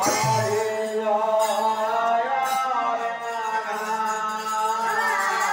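Harinam kirtan: voices chanting a devotional melody in long held, gliding notes over a steady low drone, with a deep drum beat at the very start.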